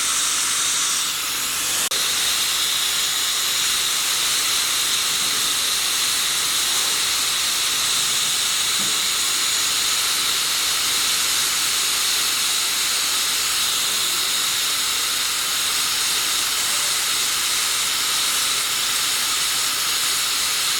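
Grinding machine grinding metal: a steady, hissing grind. Its pitch shifts down about two seconds in, marked by a click.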